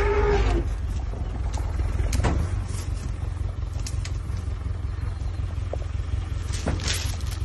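Open safari vehicle's engine running with a steady low rumble, with a few short knocks and rattles.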